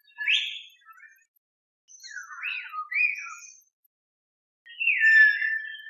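Common hill myna (beo) calling in three separate bouts with silent gaps between: a short rising call, then a cluster of gliding whistles and squawks about two seconds in, then a longer falling whistle near the end.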